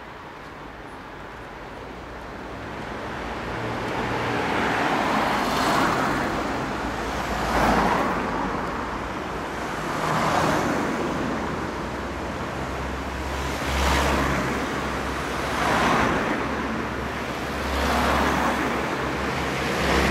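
Road traffic: cars passing one after another, about seven swells that rise and fall every two to three seconds, with a low engine rumble underneath. It builds up a few seconds in.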